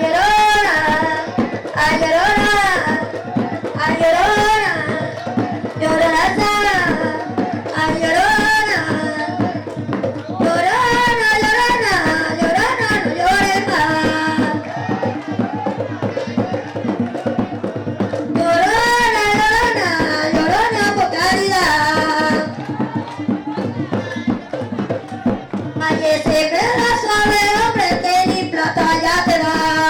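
Panamanian tamborito: a woman singing in phrases over hand drums, with short stretches of drumming alone between the sung lines.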